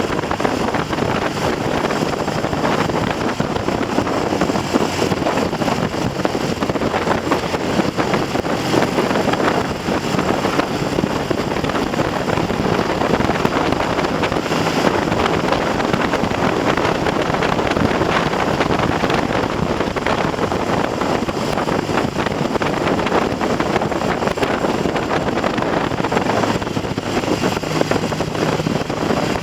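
Heavy wind buffeting on the microphone of a moving Triumph TR6 motorcycle, with its 650 cc parallel-twin engine running steadily underneath. The engine has a freshly rebuilt top end and is being run in at mid-range revs on light throttle.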